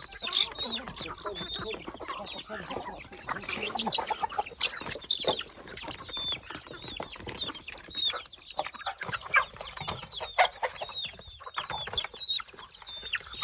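A flock of chickens clucking and calling while feeding, many short high-pitched calls overlapping, with scattered sharp clicks among them.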